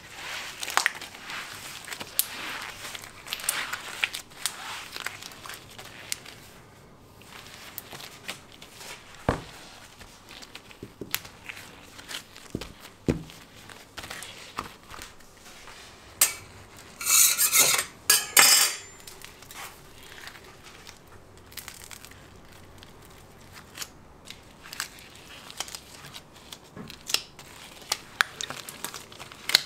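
Clinks, taps and scrapes of hand tools working candy on a work surface during handmade hard-candy making, with scattered sharp knocks and a louder noisy scrape in two bursts about halfway through.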